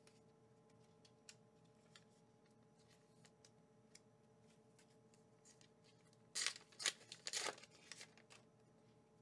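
Pokémon promo card pack wrapper being torn open: a few short, crinkly tearing sounds about six and a half seconds in, after faint ticks of cards being handled.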